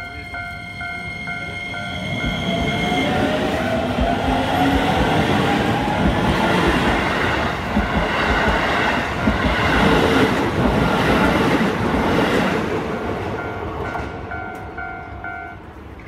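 Keisei 3000-series electric commuter train passing over a level crossing: a whine rising in pitch as it gathers speed, then the clatter of its wheels over the rail joints, loudest in the middle. The crossing's warning bell rings steadily at the start, is drowned out by the train, and is heard again near the end before it stops.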